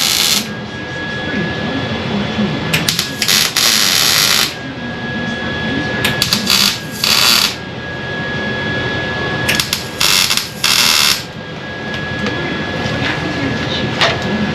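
A welder laying a series of short tack welds on sheet-steel rocker panels: about five separate bursts of arc noise, each up to about a second and a half long, with a steady hum between them.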